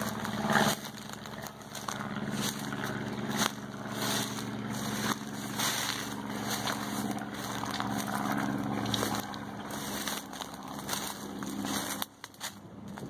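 Brush crackling and snapping in irregular bursts as someone pushes on foot through thick scrub, over a steady low engine hum.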